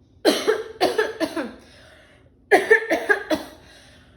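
A person coughing in two fits of about three coughs each, the second fit starting about two and a half seconds in.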